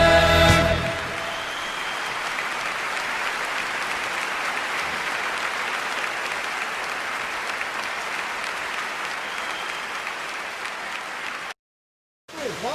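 The last held note of the sung national anthem ends in the first second, followed by steady applause from a crowd. The sound cuts out completely for under a second near the end.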